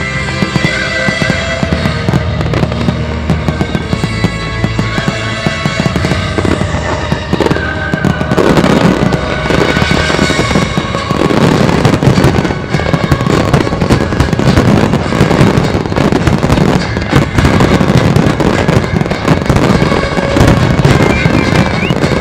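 Aerial fireworks shells bursting in rapid, overlapping succession over a music soundtrack. The bursts grow denser and louder about eight seconds in.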